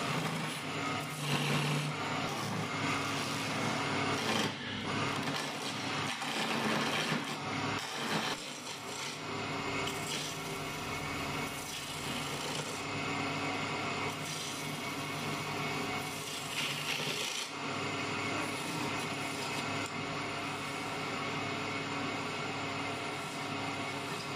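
Wood lathe running while a cutting tool shaves a spinning wooden chair-leg blank. A continuous rasping scrape sits over the steady hum of the machine.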